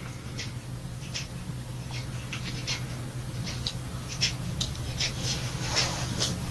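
Light, irregular clicks and taps of the small metal parts of a chainsaw carburetor being handled and fitted together by hand, with a brief rustle near the end, over a steady low hum.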